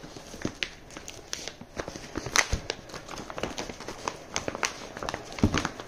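Hands pulling at a taped cardboard mailer and plastic sleeves: irregular crinkling, rustling and sharp tapping clicks, with a louder thump near the end.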